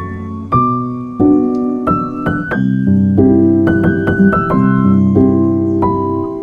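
Background piano music: chords and a melody struck every half second or so.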